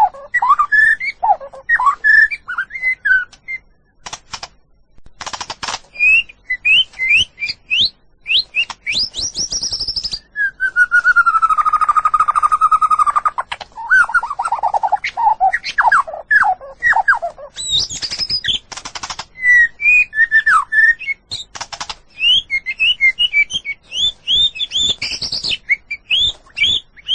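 White-rumped shama singing a loud, highly varied song: quick rising whistles and trills mixed with short harsh notes, with one long drawn-out whistle, slurring slowly downward, near the middle.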